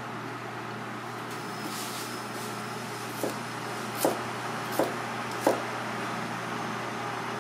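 Kitchen knife chopping through a carrot onto a plastic cutting board: four sharp chops about three quarters of a second apart in the second half, over a steady low hum.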